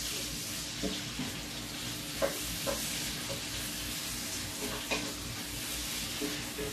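Food sizzling in a pan on the stove, a steady hiss, with a few light knocks of a utensil against the pan.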